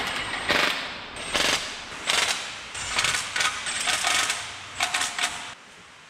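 Ratchet wrench clicking in about six short spells as the accessory bracket and alternator bolts are snugged down.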